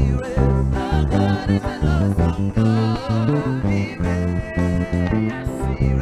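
Music: a song with singing over a bass line.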